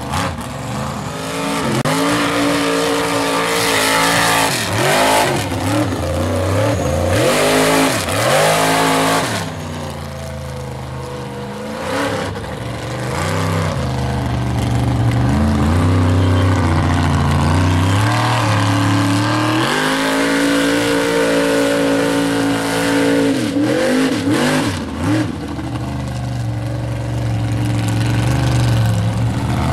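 Mega mud truck engines revving hard through deep mud, the pitch repeatedly climbing and dropping as the throttle is worked. Mud and water spraying from the tyres.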